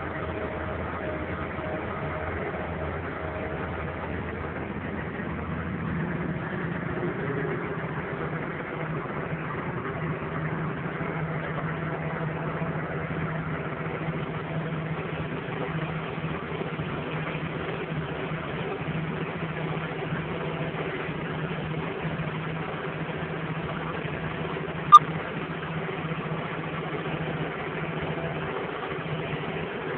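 Deutz tractor's diesel engine running steadily under load while pulling a plough, heard from inside the cab. Once, late on, a single sharp click.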